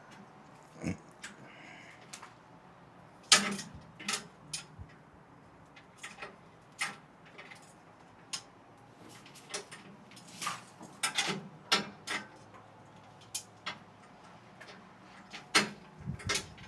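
Irregular clicks, taps and knocks of parts and tools being handled while assembling an elliptical trainer, the loudest a sharp knock about three seconds in.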